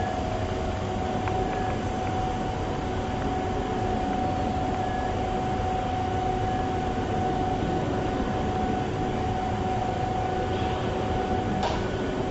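Boat engine running steadily: a continuous drone with a steady hum.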